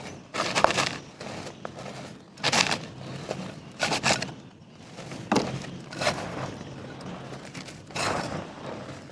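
Dry pure mud pieces being crushed and crumbling, with irregular crunches and breaks and a crackle of grains between them.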